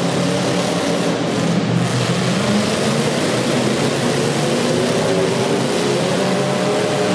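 Several demolition derby car engines running and revving at once, their pitches rising and falling, over a steady wash of noise.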